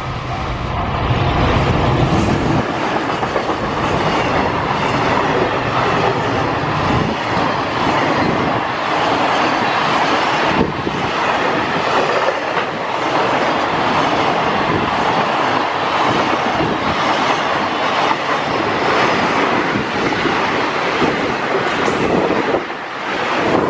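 JR Freight EF210 electric locomotive passing close by with a low hum for the first couple of seconds, followed by a long container freight train running past, its wheels clattering on the rails in a steady, loud rumble.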